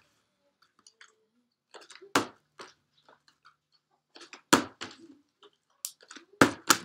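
Partly filled plastic water bottle knocking down on a wooden tabletop four times as it is flipped and falls, with its thin plastic crackling in a hand between landings. The first knock comes about two seconds in, one halfway through, and two close together near the end.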